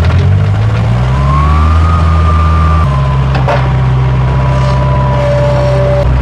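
Skid steer engine running under throttle: its pitch rises about a second in, then drops and holds steady about three seconds in, with a thin whine above it and one sharp click about halfway through.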